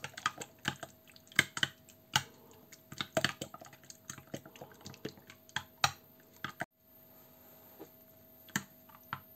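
Metal spoon clinking and scraping against a ceramic plate while stirring a runny egg and sour-cream batter: quick irregular clicks that stop suddenly about two-thirds of the way in, with one more click near the end.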